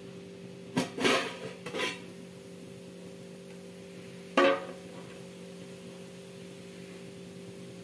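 An aluminium pot lid lifted off, clinking against the pot a few times about a second in, with another sharp metal clank a few seconds later, over a steady low hum.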